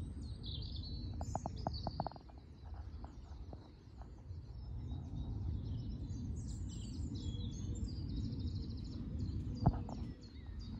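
Several small birds chirping and singing, with a fast trill in the middle, over a steady low rumble. A few soft clicks come about a second in.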